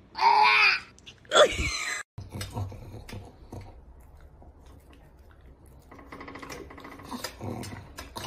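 Two loud pitched cries in the first two seconds, the second sliding steeply down in pitch. After a short gap, a pug whines softly, with small clicks, while it begs at a dinner table.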